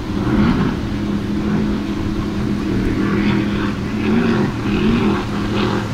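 Offshore racing powerboat's engines running at high speed, a steady low drone whose pitch wavers briefly a couple of times.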